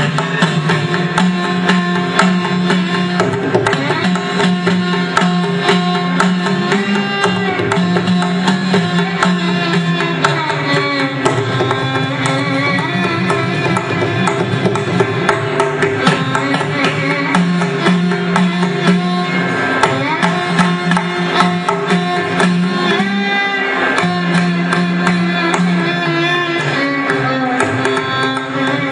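Edakka, the Kerala hourglass drum, struck with a thin stick in fast, even strokes while its lacing is squeezed to bend the pitch, so the drum plays the melody of a Carnatic kriti in gliding notes.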